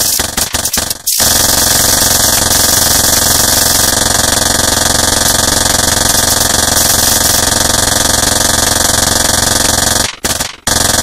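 Harsh noise music made with low-tech sound interference: a loud, steady buzzing drone with hiss over it. It is chopped into stuttering on-off bursts in the first second and again near the end.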